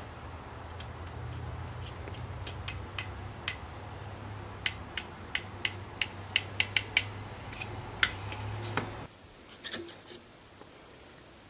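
Irregular small sharp clicks and taps as a metal capstan wrench turns a wooden capstan in its hole in a wooden beam, winding the pendulum line, over a steady low hum. The hum stops suddenly about nine seconds in, leaving a few faint clicks.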